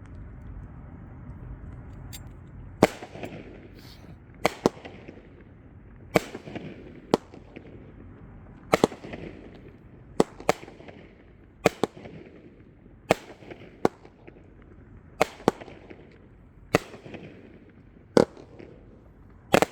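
Consumer aerial fireworks firing: a string of sharp bangs starting about three seconds in, coming about every second or so, often in quick pairs, each trailing off in an echoing rumble.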